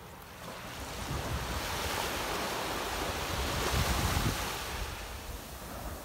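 Small wave washing up onto a sandy shore and draining back. It swells over the first four seconds and fades near the end, with wind rumbling on the microphone.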